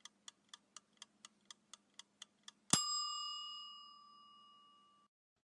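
Countdown-timer sound effect: faint, even ticking at about four ticks a second, then a single bright bell ding about two and a half seconds in that rings out and fades over about two seconds, marking the end of the decision time.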